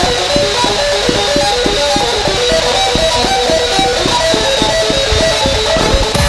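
Music from the fireworks show's soundtrack: a fast repeating pattern of short plucked-sounding notes over a quick steady pulse.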